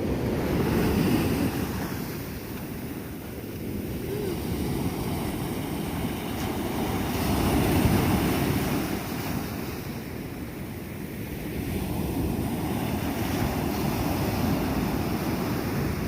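Ocean surf washing on the beach, swelling about a second in and again around eight seconds, with wind buffeting the microphone.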